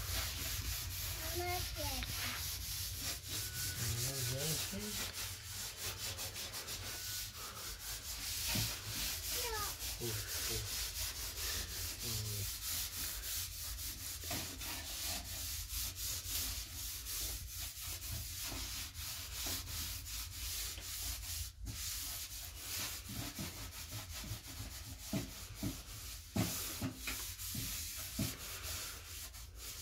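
A gas stove's enamel top being scrubbed by hand: a quick, continuous run of rubbing strokes, with a few sharper knocks in the second half.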